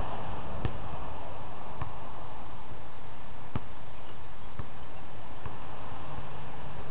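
Basketball thudding off the hoop and ground a few times, faint and irregularly spaced, over a steady background hiss; a low hum comes in near the end.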